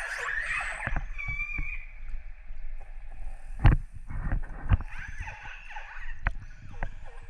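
Wild orcas (killer whales) heard underwater: overlapping high, gliding calls and whistles, thickest in the first couple of seconds and picking up again about five seconds in. Several sharp clicks or knocks cut across them, the loudest a little under four seconds in.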